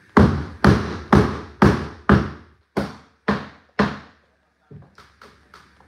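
Hammer blows on hardwood floorboards being knocked into place: eight loud, sharp strikes about two a second, then four lighter, quicker taps near the end.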